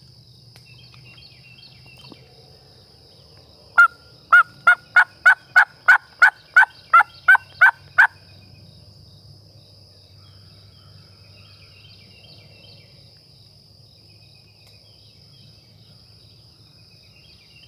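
Turkey mouth call yelping like a hen: a run of about thirteen loud yelps, roughly three a second, each note breaking downward in pitch, starting about four seconds in and lasting about four seconds. A faint steady insect drone runs underneath.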